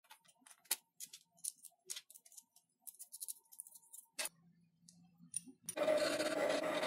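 Small sharp clicks and taps of a fluted steel cutter and wooden washer being handled and fitted onto a threaded rod. About six seconds in, a flat hand file starts rasping across the part clamped in a small wooden vise, louder than the clicks.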